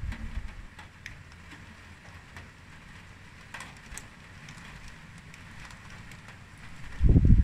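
Wind buffeting the microphone in two short, loud low gusts, one at the start and one near the end, over a faint steady hiss as a thunderstorm approaches.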